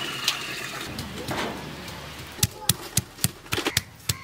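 Water pouring from a bucket into a large aluminium wok, splashing and fading. About two and a half seconds in, it gives way to a quick run of sharp knocks, about three a second: a stone pounding spice pieces on a wooden board.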